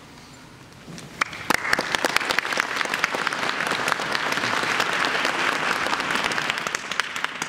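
Audience applause: after about a second of quiet, many hands start clapping and keep up a dense, steady clapping.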